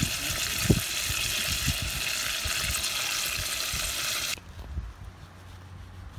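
Wild turkey breast sizzling in a metal pot over a campfire, a steady hiss with a few low pops. It cuts off abruptly about four seconds in, leaving a much quieter low steady hum.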